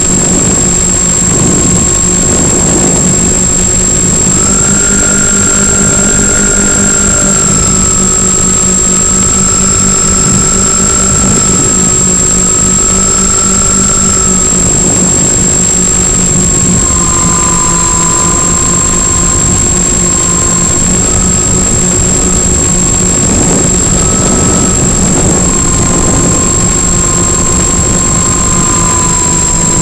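The twin electric motors and propellers of a Multiplex Twinstar 2 model plane droning in flight, over wind rush. Their tones shift up about four seconds in and drop again about halfway through. A steady high whine runs over it.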